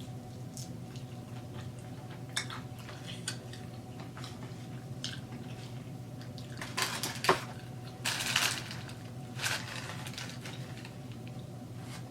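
Close-miked eating and handling of chicken wings and their takeout containers: scattered small clicks, then a few louder clattering, rustling noises between about seven and ten seconds in, over a steady low hum.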